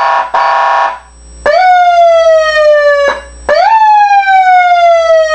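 Electronic siren through external speakers: a buzzy air-horn tone in short blasts, then the manual tone swept twice, each time jumping up quickly in pitch and falling away slowly.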